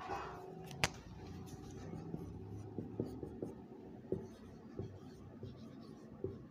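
Marker pen writing on a whiteboard: faint scratching strokes with light ticks of the tip, and one sharp click about a second in.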